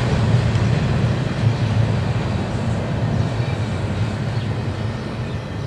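Freight train's last intermodal container cars rolling past on the rails, a steady rumble of wheels on track that slowly fades as the end of the train moves away.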